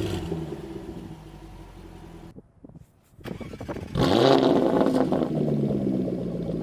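Jaguar F-Type exhaust. The revs die away to a quiet idle and drop out almost to silence. About four seconds in comes a sudden loud flare of revs, which falls back to a steady idle.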